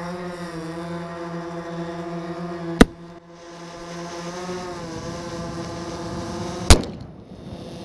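Strike Art MT-130 airsoft pea grenade going off: two sharp bangs about four seconds apart, over a steady droning tone.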